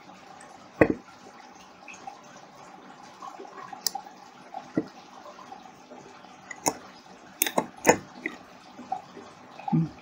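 Sharp clicks from a fiber-optic cleaver being handled as a fiber core is clamped in it for cutting. There is one loud click about a second in, a few single clicks, and a quick run of three clicks between seven and eight seconds in, over a faint steady hiss.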